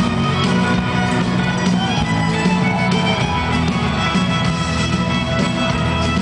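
Live folk-rock band playing an instrumental stretch with a steady drum beat, amplified through a concert PA and recorded from the crowd.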